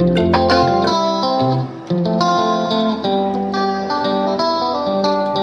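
Background music led by plucked guitar, with a brief dip just under two seconds in.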